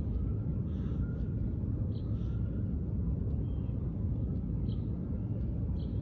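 Steady low outdoor rumble with a few faint, short, high bird chirps scattered through it.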